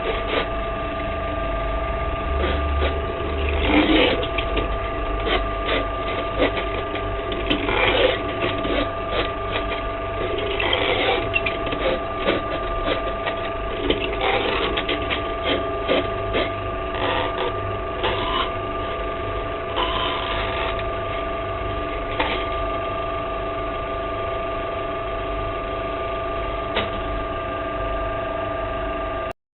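Electric drain-cleaning machine running, its motor giving a steady whine. Irregular rattling and knocking come from the cable working in the drain.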